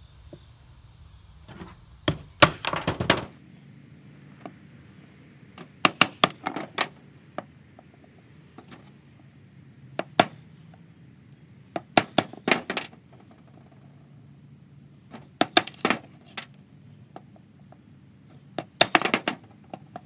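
Knife chipping wood from the end of a hard oak spindle: short clusters of sharp cracks and snaps every three or four seconds as chips split off along the grain.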